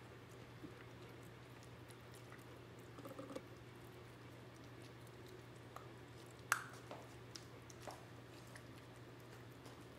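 Rottweiler puppy eating raw chopped chicken with bone from a stainless steel bowl: faint wet chewing and squishing, with a few sharp clicks, the loudest about six and a half seconds in. A faint steady low hum runs underneath.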